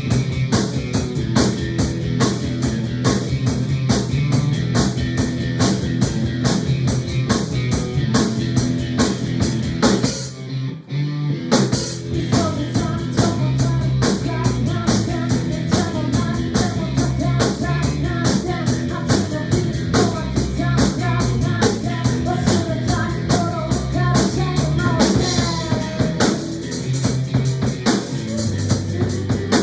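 Rock music driven by a busy drum kit with fast, even beats. The music briefly drops out about ten and a half seconds in, then comes back in full.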